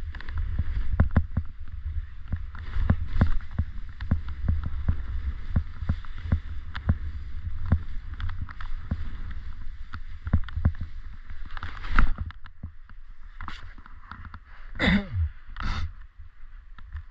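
Edges sliding and scraping over packed snow during a downhill run, with irregular clicks and knocks from bumps and a constant low wind rumble on the GoPro's microphone.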